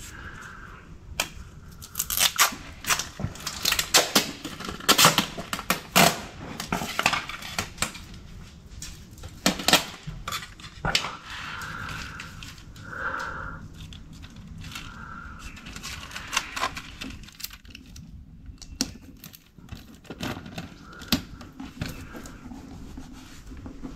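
Adhesive tape being pulled off the roll and torn into strips, a series of sharp, irregular rips and crackles, then pressed onto the hull.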